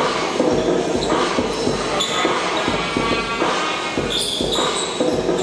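Basketball game sounds in a large echoing gym: the ball dribbled on the court, with an irregular run of bounces and knocks and players' shoes shuffling.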